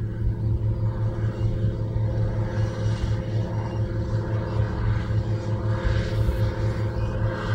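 John Deere 7820 tractor's six-cylinder diesel engine running steadily under load as it pulls a seed drill: a constant low drone with a steady hum.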